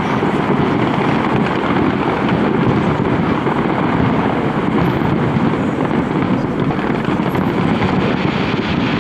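Distant fireworks going off without pause, merging into a steady loud rumble and crackle, with wind on the microphone.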